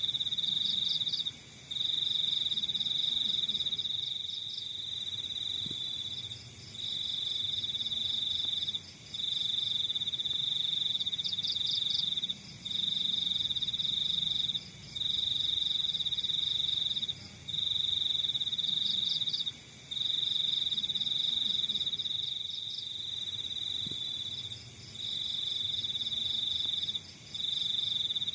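Crickets trilling: one loud, high, steady trill in stretches of a few seconds, broken by short pauses, with a softer pulsed chirping just above it.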